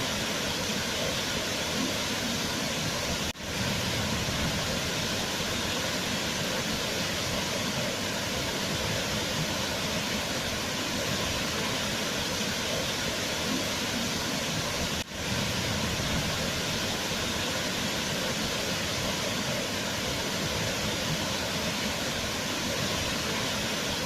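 Waterfall: a steady rush of falling water, cut by two brief dropouts, about three seconds in and again about fifteen seconds in.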